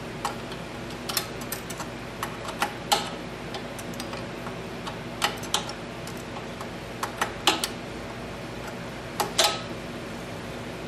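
Irregular sharp metallic clicks and clinks of a wrench and hand tools on the carburetor mounting nuts and linkage of a small snowblower engine, a few ringing briefly. A steady low shop hum runs underneath.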